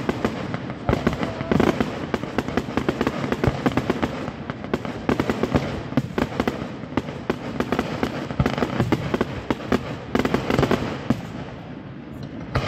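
A rapid barrage of overlapping fireworks bangs and crackles, thinning out near the end.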